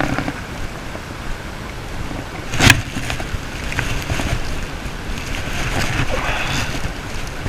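Wind buffeting the microphone over open water, with one sharp knock about two and a half seconds in. After that, a spinning reel is cranked under the wind noise.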